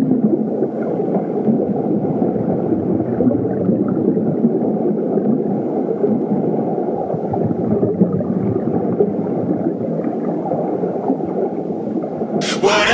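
Steady, muffled low rushing noise with no clear tone or rhythm.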